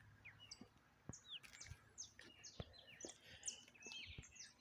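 Faint chorus of many small songbirds chirping and calling at once: short high chirps and quick rising and falling whistled notes overlapping, with a few soft low knocks.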